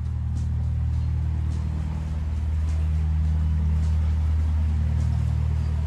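Narrowboat diesel engine running steadily while cruising: a low, even drone with faint regular ticking above it.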